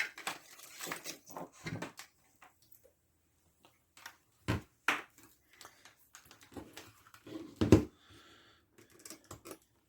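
Scattered clicks, clacks and knocks of hard objects handled on a workbench as a multimeter and its test leads are got ready, with louder knocks at about four and a half, five and nearly eight seconds in.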